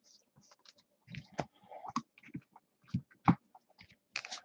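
Topps Chrome baseball cards being handled and shuffled in hand: a scatter of soft, irregular clicks and brief scrapes of card stock.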